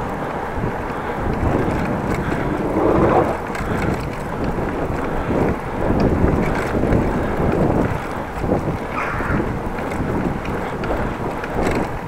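Wind rumbling and gusting on the microphone of a camera on a moving bicycle.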